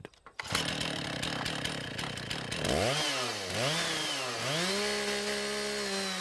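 Two-stroke chainsaw engine revved up and down a few times, then held steady at high revs. A clattering noise comes before the revving.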